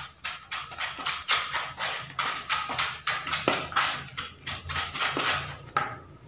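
Hands kneading and squeezing a damp carp-bait dough of corn, cassava and taro binder mixed with fish mash in a plastic bowl: quick squelching pats, about three or four a second, stopping near the end.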